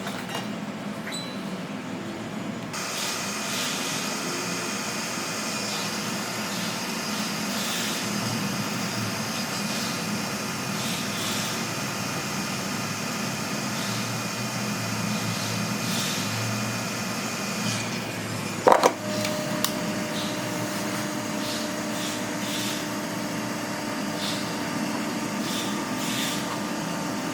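Steady whirring of a small motor or blower, with one brief sharp, loud sound about nineteen seconds in, after which a steady tone joins the whirring.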